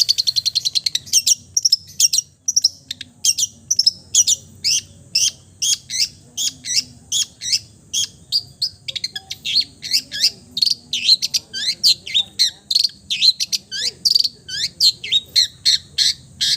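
Long-tailed shrike (cendet) singing a fast, unbroken run of short, sharp, downward-sweeping chirps, about three or four a second, opening with a quick trill.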